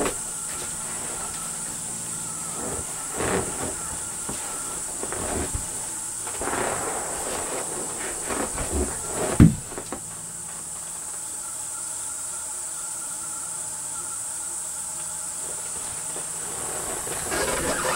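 Rustling and light knocks of a rifle and gear being handled at a shooting bench, with one sharp thump about nine seconds in, over a steady high-pitched hiss.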